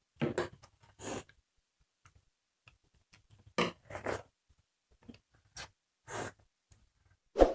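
Eating sounds: a handful of short scrapes of spoons against plates and bowls, and near the end a sharper metallic clink with a brief ring.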